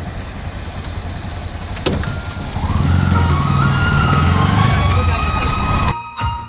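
Road vehicle engine and traffic noise. About two and a half seconds in, the engine note rises in pitch and grows louder as the vehicle accelerates, then the sound cuts off abruptly near the end.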